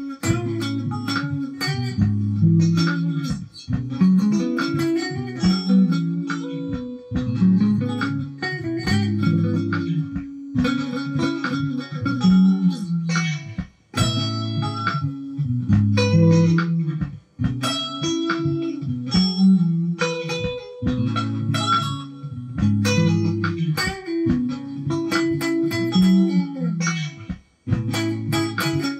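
Electric guitar played in a soul style: a continuous run of picked notes and chords with a full low end, broken by a few short pauses.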